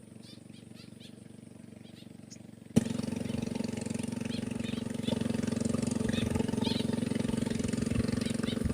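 A small engine starts running abruptly about three seconds in with a sharp click, then holds a steady pitch. Faint high bird chirps run through it.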